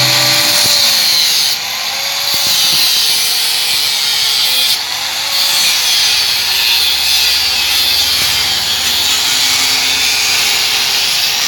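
Electric angle grinder with a cutting disc cutting into steel. The motor's whine wavers up and down as the disc is pressed into the work, with brief dips in loudness about a second and a half in and again near five seconds.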